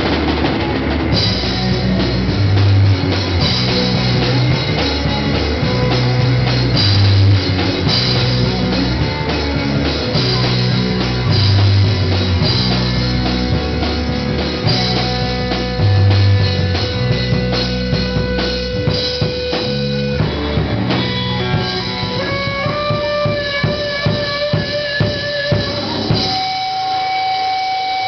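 Live rock band playing loud: a drum kit with a heavy kick-drum beat and electric guitars. About two-thirds of the way through, the driving beat drops away, leaving held guitar notes over light, regular drum hits.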